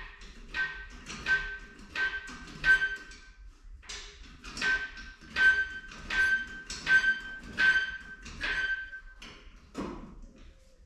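Floor jack being worked by hand, giving a squeak of the same pitch on each stroke at about one and a half strokes a second, with a short pause about three and a half seconds in.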